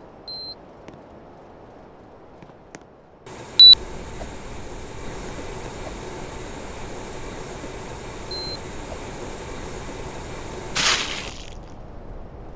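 Air conditioner beeping as it takes remote commands: a short beep, then a few seconds in a louder beep as its fan starts up into a steady hum with a thin high whine. Another short beep follows, and near the end a brief rush of air noise before the hum cuts off suddenly.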